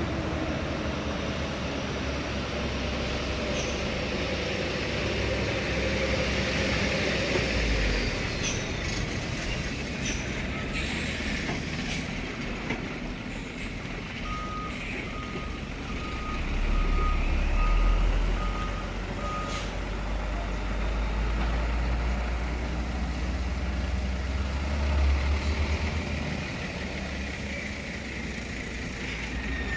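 Heavy truck engines running at low speed, the rumble swelling twice. About halfway through, a reversing alarm gives about eight short beeps, a little over one a second.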